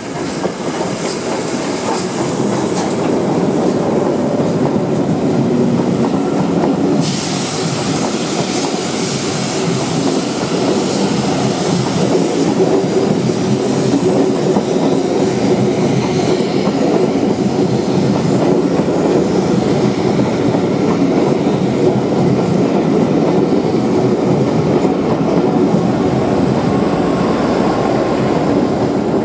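A steam-hauled passenger train running through a station without stopping: the LMS Princess Coronation Class Pacific 46233 Duchess of Sutherland passes, then a long rake of coaches rolls by with steady wheel clatter. Near the end the Class 57 diesel locomotive at the rear goes past. A sudden rise in hiss comes about seven seconds in.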